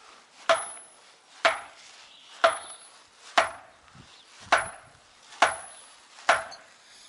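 Big hammer striking a thick round of very hard acacia wood seven times, about once a second. Each blow is a sharp knock with a short ringing tail, like hitting metal, the sign of how hard and dense the acacia is.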